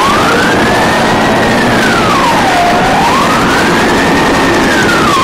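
Emergency vehicle siren wailing, its pitch sweeping slowly up and down about once every three seconds over a loud, steady rush of noise.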